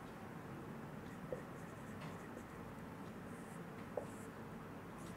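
Felt-tip marker writing on a whiteboard: faint squeaky strokes, with two light taps of the tip on the board, about a second and a half in and near four seconds.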